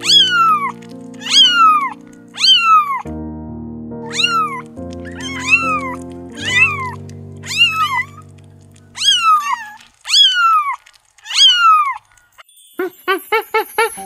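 Young kittens mewing: high, thin mews about once a second, each one falling in pitch, over background music that stops about two-thirds of the way through. Near the end a quick run of short tinkling notes starts.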